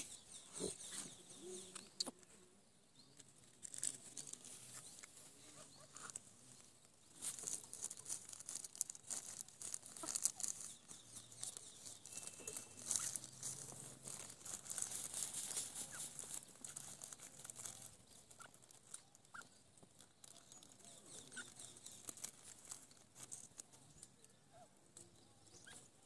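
A grey francolin dust-bathing in loose dry soil: scratchy rustling and pattering of earth and flicked feathers in irregular bursts, busiest in the middle stretch.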